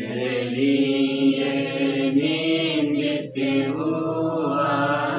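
Slow worship song being sung in long held notes over a steady low drone, with a short break about three seconds in.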